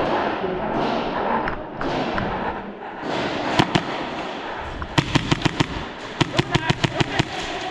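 Airsoft guns firing: two sharp cracks about three and a half seconds in, then two rapid strings of shots, about six and then about nine, near the end.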